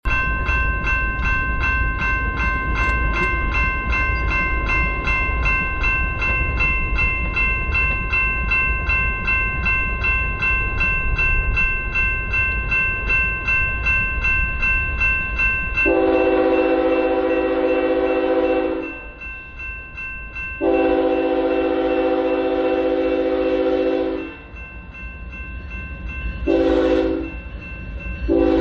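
Railroad grade-crossing bell ringing in rapid, even strikes. From about halfway in, a diesel locomotive's air horn sounds the crossing signal over it: two long blasts, a short one, and a long one that begins at the very end.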